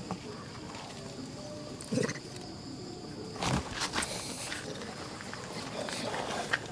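Short sounds from a macaque mother and her tiny infant as she handles it on gravel, about two and three and a half seconds in, over a steady high insect drone.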